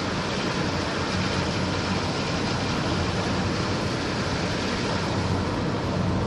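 A car driving at a steady speed, heard from inside the cabin: even tyre and road noise with a steady low engine hum.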